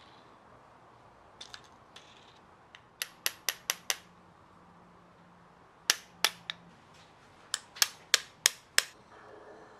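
Small hammer tapping the blade of a Japanese kanna (plane) in its wooden block to set the blade, giving short, sharp metallic taps in three quick runs of about five, three and five strikes.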